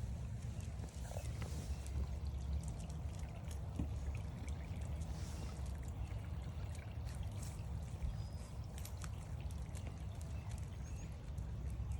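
Footsteps walking along a trail, heard as irregular short ticks over a steady low rumble, with a few faint bird chirps late on.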